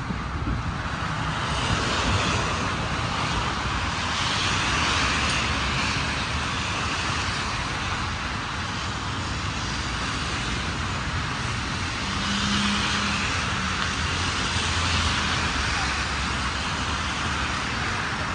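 City street traffic: tyres hissing on the road over a low engine rumble, swelling and fading several times as vehicles pass.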